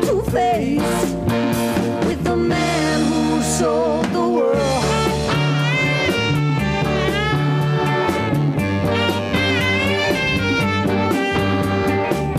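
A woman singing a song with band accompaniment, a bass line moving beneath.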